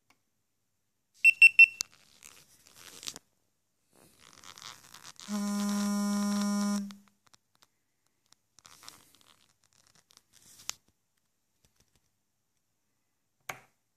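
Three quick high electronic beeps from a GoPro camera about a second in, then a steady low electronic buzz for about a second and a half a little after five seconds in, with handling clicks and rustles around them.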